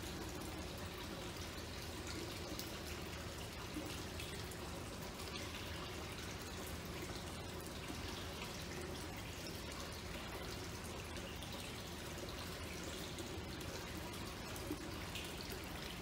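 Water fountain running steadily, a continuous trickle and splash.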